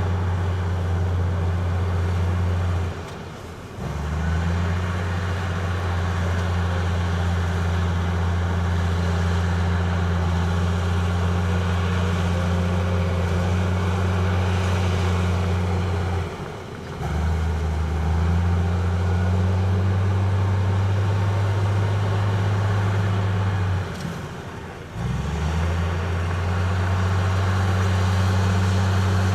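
Heavy diesel construction machinery running with a strong, steady low drone. The sound drops away briefly three times and comes back each time with a short rise.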